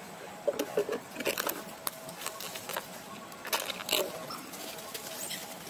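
Young macaques shuffling on a leaf-strewn concrete ledge: scattered short rustles and scrapes, in small clusters about half a second in, just past a second, and again around three and a half seconds in.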